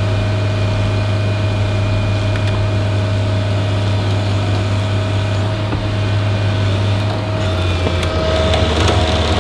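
Heavy diesel equipment engines running steadily under load, a constant low drone; about seven and a half seconds in the engine note drops and grows louder.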